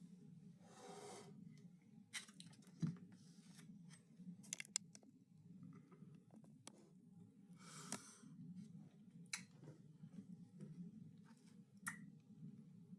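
Faint eating sounds close to the microphone: scattered clicks and smacks of chewing and handling food, with two short hisses, one about a second in and one near the eighth second.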